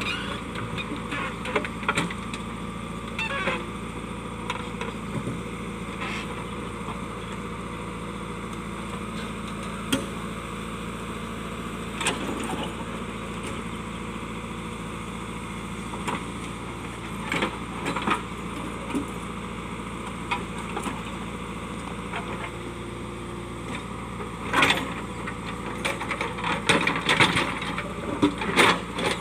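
JCB backhoe loader's diesel engine running steadily, with scattered knocks and clanks of the bucket against rocks, coming thick and fast near the end.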